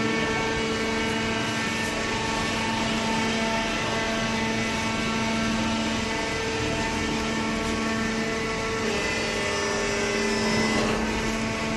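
Industrial hydraulic cardboard baler and its feed conveyor running: a steady machine hum with a strong low tone and many overtones that holds even throughout.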